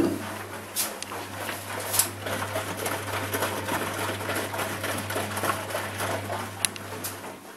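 Ardo A 500L washing machine in the main wash of a 60° cotton cycle after heating: the drum motor hums steadily while the soapy laundry tumbles and sloshes, with a few sharp clicks. The hum stops suddenly near the end as the drum pauses in its tumble rhythm.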